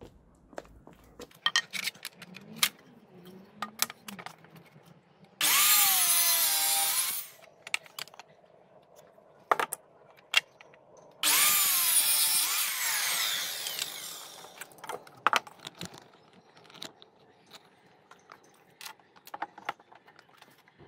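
Electric mitre saw run twice, cutting through a wooden block each time: a motor whine that dips in pitch as the blade bites, about two seconds the first time and about three the second. Knocks and clatter from handling the wood and the saw come between the cuts.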